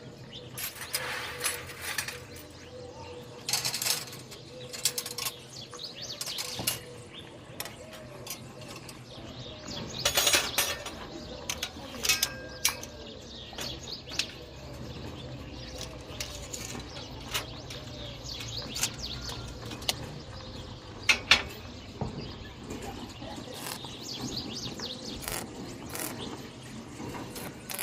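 Irregular clanks, clicks and knocks of iron pieces being handled and worked by hand, some with a brief metallic ring; the loudest knocks come about ten seconds in and again about twenty seconds in.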